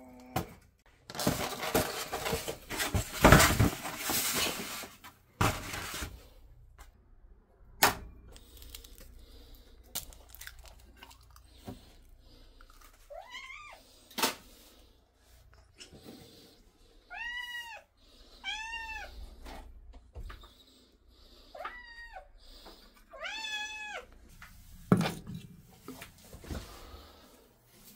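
Domestic cat meowing about five times in the second half, short rising-and-falling meows, as food is being readied for it. Before that, a few seconds of loud rummaging and clatter, then a few sharp clicks.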